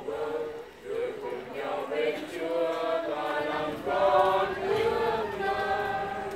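Congregation singing a hymn together during Mass, with long held notes.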